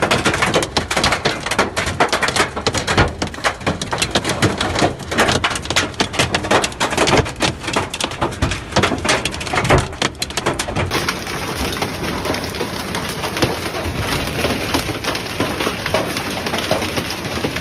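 Heavy hail pelting down: a dense, irregular clatter of stones striking hard surfaces. About two thirds of the way through it turns into a steadier, even patter.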